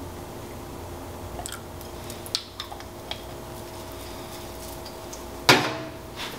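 A few small clicks and taps of a bottle being handled, then one sharp knock about five and a half seconds in as the bottle of browning is set down on the counter, over a steady low hum.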